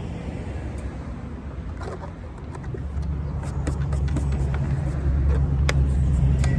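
A motor vehicle engine runs with a low, steady rumble that grows louder about three seconds in. A few light clicks and taps sound over it.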